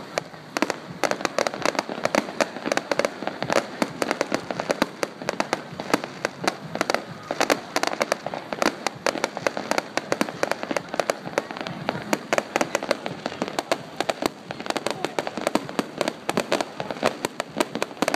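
Fireworks going off in a fast, continuous crackle of many small sharp bangs, several a second and never pausing.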